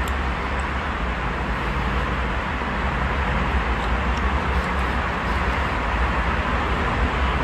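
Steady rumble and hum of a moving vehicle, with no marked changes.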